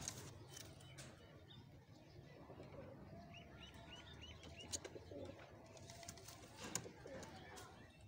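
Faint sounds of a pair of domestic Dobaz pigeons: soft low cooing, with a quick run of about six high chirps a little past three seconds in and a few light clicks.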